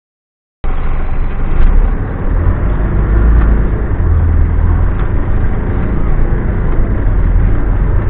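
Cabin noise inside a moving bus: a steady, loud, low engine and road rumble as it drives along the street. The sound drops out completely for about half a second at the start.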